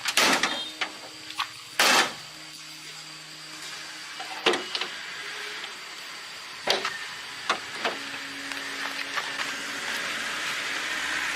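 Several sharp knocks and clanks, the loudest about two seconds in, over a steady mechanical hum, with a hiss growing louder toward the end.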